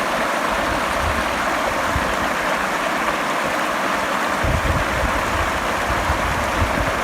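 Steady rush of water from a waterfall and its stream, with irregular low rumbling gusts from about halfway through.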